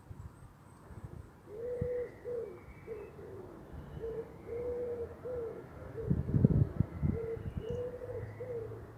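Feral pigeon cooing, a run of short low coos repeating about twice a second. About six seconds in there is a louder burst of low rumbling.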